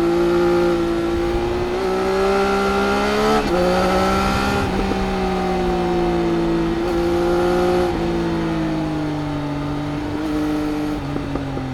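Triumph Speed Triple RS's 1050 cc three-cylinder engine through its Arrow exhaust, heard from the rider's seat under way with wind rush. Its note holds fairly steady, jumps in pitch a few times with gear changes, then falls gradually.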